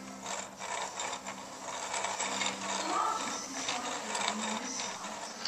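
Hand-cranked wooden automaton: a spiral of wooden cams on the turning shaft lifts and drops a row of wooden slats, giving a steady stream of wooden clicks and clatter.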